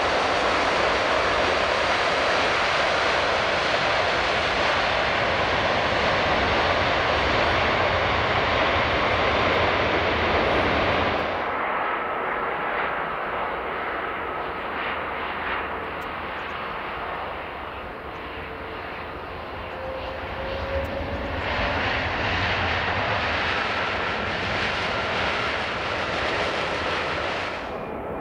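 Jet airliner engines heard across edited shots. First a Boeing 747-400's engines as it taxis close by, a loud steady rush. About eleven seconds in, a sudden cut to a quieter passage with a faint whine as an Airbus A330 takes off. Two-thirds of the way through, another cut brings a louder jet again.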